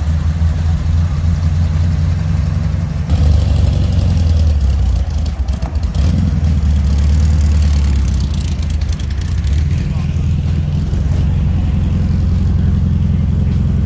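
Air-cooled Volkswagen Beetle flat-four engines running, a steady low drone that changes character abruptly at a couple of edit points. People are talking in the background.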